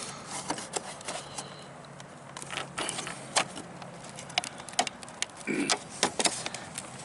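Irregular clicks and taps of hard plastic fairing clips and parts being handled and fitted, with a brief scrape about five and a half seconds in.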